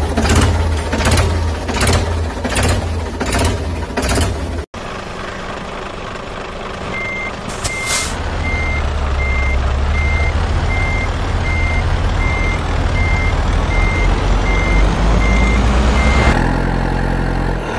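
Heavy engine chugging in regular pulses, just under two a second, until a sudden cut. Then a truck engine runs steadily while its reversing alarm beeps evenly, the beeping starting a few seconds after the cut and stopping shortly before the end.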